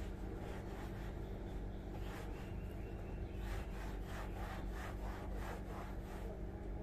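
A cloth rubbed back and forth against a damp, mouldy wall, wiping the mould off in quick repeated strokes that come thickest in the second half, over a steady low hum.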